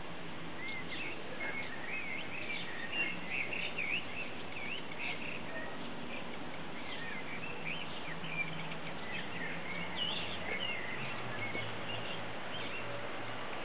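Small birds chirping: many short, quick notes that rise and fall in pitch, scattered throughout over a steady background hiss.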